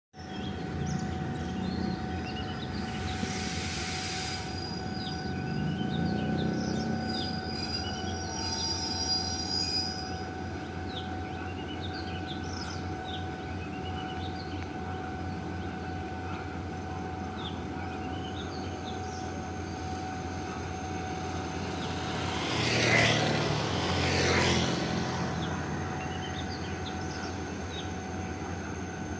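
GE GEK-class diesel-electric locomotive engine running at low revs with a steady drone as the train creeps slowly toward the station, birds chirping throughout. A brief hiss comes about three seconds in, and a louder rush of noise swells and fades about three quarters of the way through.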